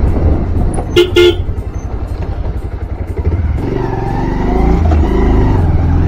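A motorcycle horn beeps twice in quick succession about a second in, over the steady low running of a Bajaj Pulsar's single-cylinder engine at low speed.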